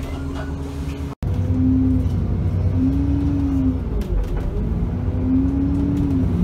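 Engine of an Alexander Dennis Enviro 400 double-decker bus, heard from the lower deck. It runs steadily at first, and the sound cuts out for an instant about a second in. Then the bus pulls away and the engine note rises and falls back three times as it changes up through the gears.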